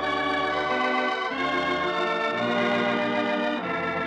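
Organ music bridge of held chords that change three times, marking a scene change in a radio drama.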